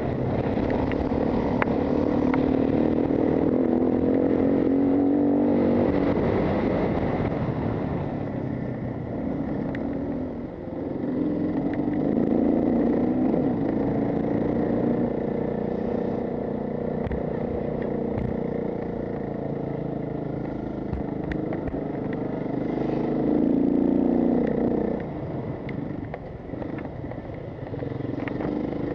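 Off-road enduro motorcycle engine heard from on board while riding, its pitch rising and falling with the throttle and gear changes, easing off briefly twice.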